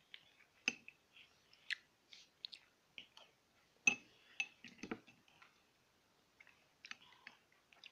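A person chewing a homemade chocolate sweet with cashews: quiet, irregular crunches and mouth clicks.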